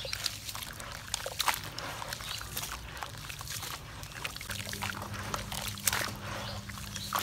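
Grey cement slurry splashed and dribbled by hand over porous, dry cement blocks sitting in a basin of water, with many small crackles and splashes as the blocks soak. A faint steady low hum comes in about halfway through.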